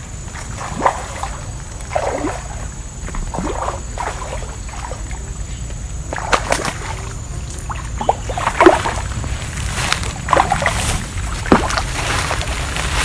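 A hooked fish splashing and thrashing at the water's surface while being played on a rod, in irregular bursts of splashes, the loudest past the middle.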